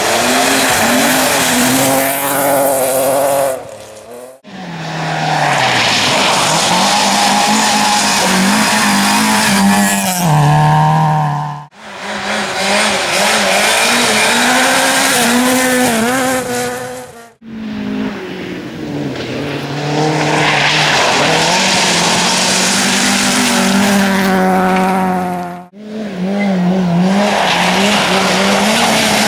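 Rally cars, among them a BMW 3 Series Compact and a Ford Fiesta, driven flat out on a gravel and mud stage. Engines rev high, the pitch climbing and dropping with each gear change and lift. Four abrupt cuts splice one pass onto the next.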